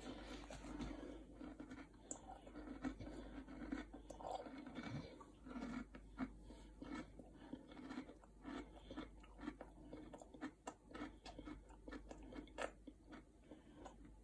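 A person chewing a mouthful of Nestlé KitKat cereal in milk: a faint, irregular run of crunches from the chocolate cereal squares, which are still crunchy despite the milk.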